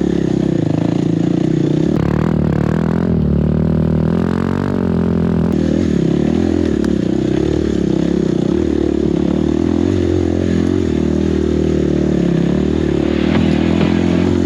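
Enduro dirt bike engine running under the rider on a steep trail climb, the revs rising and falling with the throttle and easing off for a few seconds early on.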